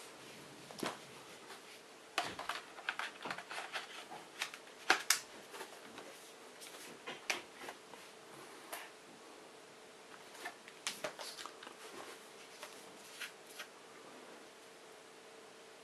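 Irregular clicks and taps of hands gripping and turning a plastic netbook casing, in quick clusters with short pauses between, over a faint steady hum.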